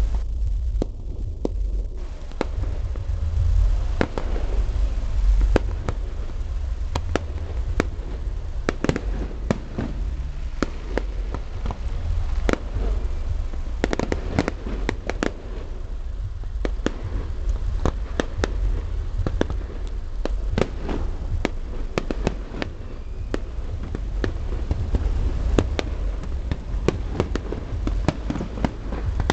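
Fireworks display: dozens of sharp cracks and bangs from bursting shells at irregular intervals, thickest through the middle, over a steady low rumble.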